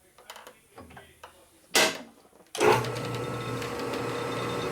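Metal lathe being set up with a few light clicks and a brief loud burst of noise, then its motor switches on about two and a half seconds in and runs with a steady hum.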